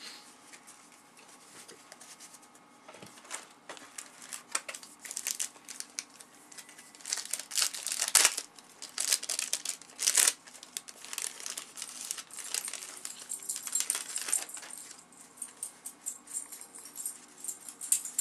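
Cellophane wrapper of a 1990-91 Fleer basketball cello pack crinkling and tearing as it is opened, loudest in the middle, with the soft riffle and snap of cardboard trading cards being flipped through before and after.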